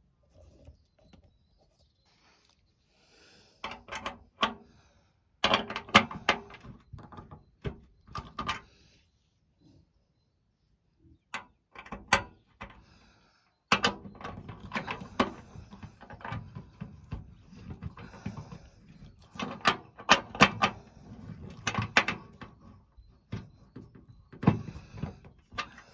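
Socket wrench tightening the nuts and bolts on a corrugated metal raised-bed panel: bursts of quick metallic clicks and clinks with handling knocks against the panel, stopping and starting with short pauses.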